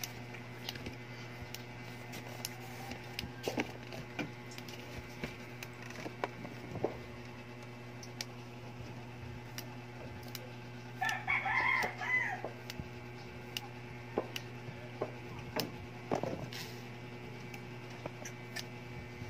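A rooster crows once, about eleven seconds in, a single wavering call of about a second and a half and the loudest sound here. Around it run a steady low hum and scattered sharp clicks as yardlong bean pods are snapped into pieces by hand.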